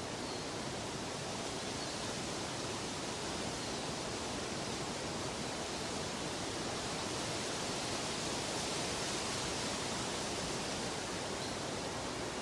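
Steady, even rushing noise spread across low and high pitches, with no tones or rhythm. It swells slightly a little past halfway.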